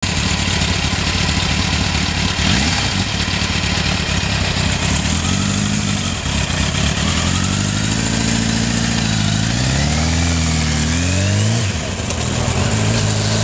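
Kawasaki GPZ900R inline-four engine running steadily, then pulling away. The engine note climbs, drops briefly about twelve seconds in at a gear change, and climbs again.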